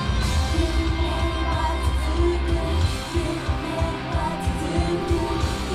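A female voice singing a J-pop idol song live into a microphone over a loud pop backing track with heavy bass, played through the venue's PA.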